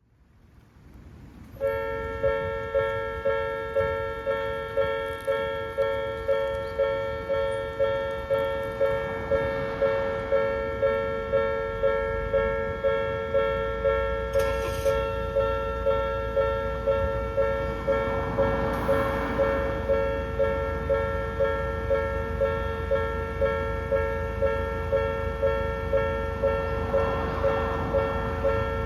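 Japanese railway level-crossing alarm of the old Odakyu type, an electronic bell ringing over and over at a little under two strokes a second. It starts about two seconds in as the crossing activates, warning of an approaching train.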